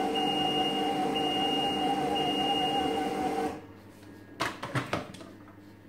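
ThermoCook TC Pro M 2.0 thermocooker running on reverse to stir a thick vegetable mixture, a steady motor hum with a high whine, which stops abruptly about three and a half seconds in at the end of its 6-second timed run. A few sharp clicks follow as the lid is handled.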